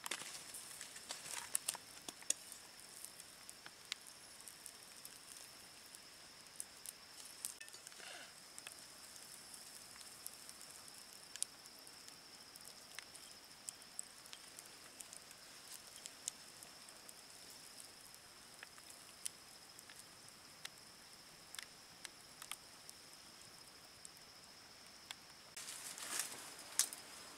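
Campfire embers under a spit-roasted duck crackling with scattered soft pops, over a steady high insect drone. Near the end comes a short burst of rustling.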